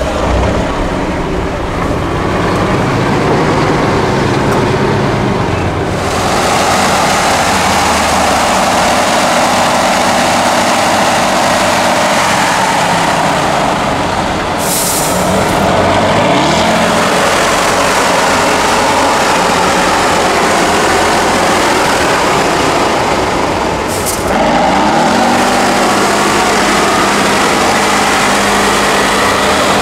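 Tatra 8x8 trial truck's diesel engine working hard under load, its revs rising and falling as it crawls over rough ground and through mud, with a couple of short hisses.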